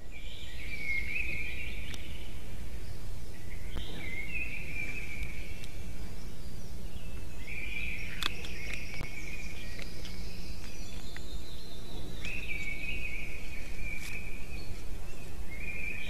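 A bird singing the same short phrase over and over, about two seconds of song every four seconds or so, over a steady low rumble of outdoor microphone noise.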